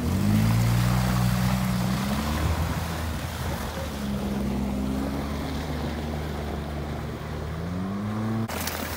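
Suzuki Escudo 4x4's engine revving hard in three surges as it works up a muddy rutted climb, the pitch rising with each surge and dropping back between them. The sound changes abruptly near the end.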